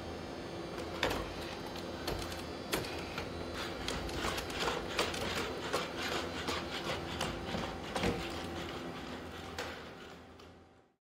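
Boston Dynamics SpotMini four-legged robot walking: a steady electric motor whine with irregular taps of its feet on the hard floor. The sound fades out near the end.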